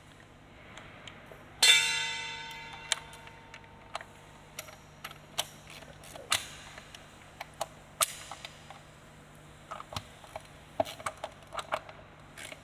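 A sharp metallic clang about two seconds in, ringing on for about a second, followed by scattered light clicks and taps of hand tools and bolts being worked on a bare engine, with a quicker run of clicks near the end.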